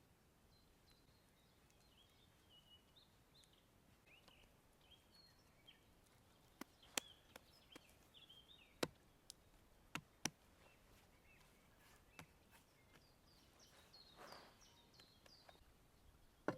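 Small birds chirping and singing faintly, with a handful of sharp clicks midway and a short hiss near the end.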